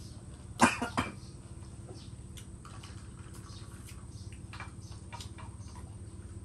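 Two sharp knocks close together about half a second in, then scattered light clicks and taps of dishes and utensils being handled at a meal on a wooden floor, over a steady low hum.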